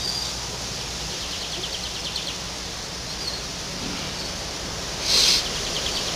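Steady background hiss with faint high bird twittering, about a second and a half in and again near the end, and a brief louder burst of hiss about five seconds in.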